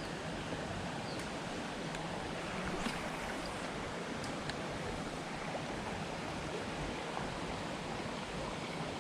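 Steady rush of water flowing over rocks in a jungle headwater stream, with a few faint ticks.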